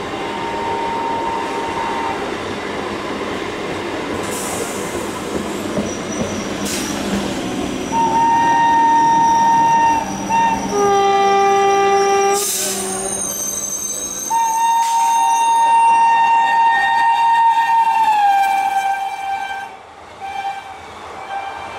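Electric locomotive hauling an Indian Railways express, sounding its air horn in several blasts as it approaches at speed over the rumble of passing trains. A loud blast about 8 s in and a short lower one soon after are followed by a long blast that drops in pitch as the locomotive goes by. Then the coaches rush past.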